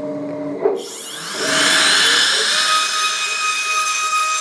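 CNC router spindle whine: it rises in pitch as the spindle spins up, then holds a steady high-pitched whine. It is preceded by a short stretch of lower-pitched machine hum that ends with a click.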